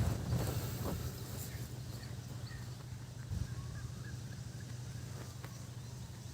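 Faint, short bird chirps over a steady low rumble, with a few sharp knocks in the first second.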